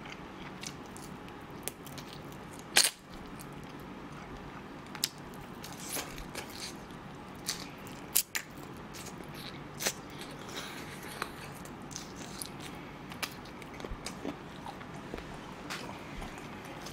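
Close-miked biting and chewing of crispy fried chicken, with scattered sharp crunches and wet mouth clicks. The loudest crunch comes about three seconds in.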